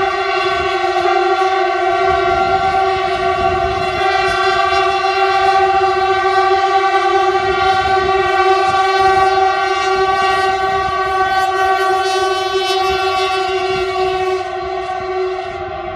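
Horns of a convoy of freight locomotives blaring as one long, steady chord of several tones, over the rumble of the train rolling across the viaduct. The horn chord eases off slightly near the end.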